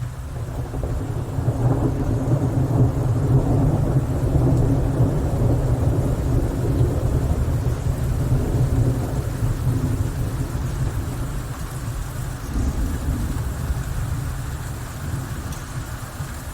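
A long roll of thunder over steady rain: the deep rumble builds over the first couple of seconds, stays loud for several seconds, then slowly dies away.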